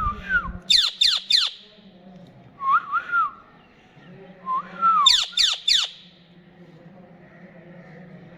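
Ring-necked parakeet calling: short arched whistles, then twice a quick run of three sharp, shrill, steeply falling shrieks, about a second in and about five seconds in.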